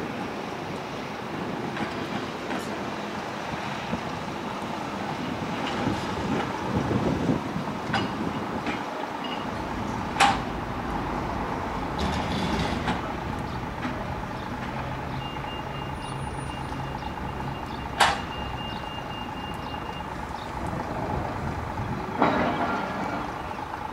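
Narrow-gauge electric tram running slowly, with a steady low rumble and a low hum that comes in for a few seconds midway. Two sharp clicks about eight seconds apart, and a faint high steady tone for a few seconds near the second click.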